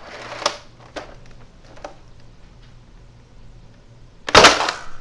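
Nerf Mega Centurion Sonic Ice, a spring-powered blaster, firing a Mega dart: one loud, sudden shot about four seconds in. Before it come a few quieter clicks and rattles from the blaster being handled.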